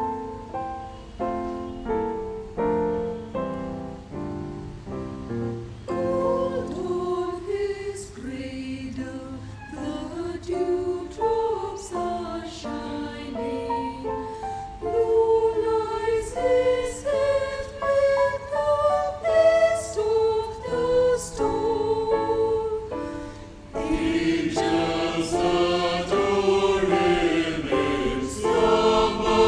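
Electronic keyboard playing alone for the first few seconds, then a mixed choir of women and men comes in singing a hymn anthem over the keyboard accompaniment. The choir grows louder and fuller near the end.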